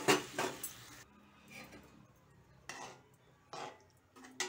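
Metal spatula knocking and scraping against an aluminium kadai while a simmering potato-brinjal curry is stirred. A quick cluster of clinks comes in the first second, then single knocks about a second apart.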